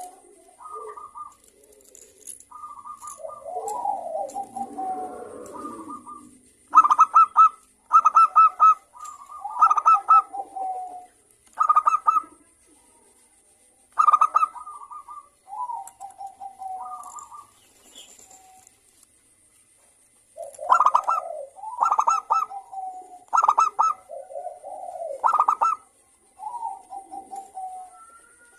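Zebra dove (perkutut) cooing: phrases of short, clipped notes mixed with brief falling coos, repeated in groups with pauses between, including a longer pause about two thirds of the way through.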